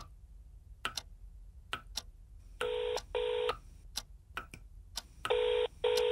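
Phone ringback tone heard through the handset: two double rings, each pair a 'ring-ring' of two short steady tones, about two and a half seconds apart, as an outgoing call rings at the other end. A steady ticking, about one tick a second, runs beneath.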